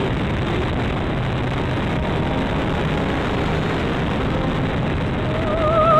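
Dynam P-51 electric RC plane in flight: a steady rush of wind and propeller noise. A short wavering tone comes in just before the end.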